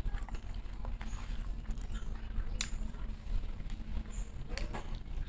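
Close-up eating sounds of a person chewing and lip-smacking while eating by hand: irregular wet clicks and smacks, over a steady low rumble.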